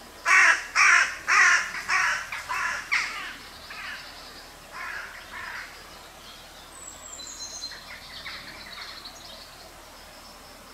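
A crow cawing six times in quick succession, about two calls a second, then twice more, fainter. In the second half a small bird gives a high, falling call and some twittering.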